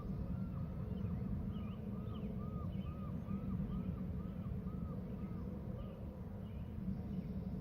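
A bird calling a rapid series of arched, whistled notes, two to three a second, that stops about six seconds in, over a steady low rumble.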